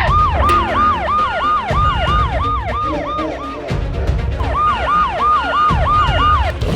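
Electronic siren wailing in fast rise-and-fall sweeps, about three a second, breaking off briefly a little past halfway and then starting again, over a low musical beat.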